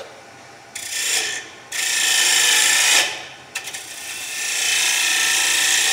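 A turning tool cutting a spinning wooden blank on a wood lathe, chamfering off its sharp corner. The cut is a hissing scrape that comes three times: starting about a second in, again near two seconds, and a longer pass from a little past halfway on.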